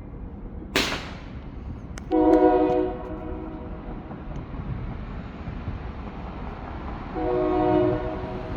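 A single firework bang about a second in, then two short horn blasts of a few steady tones sounding together, each under a second, about five seconds apart.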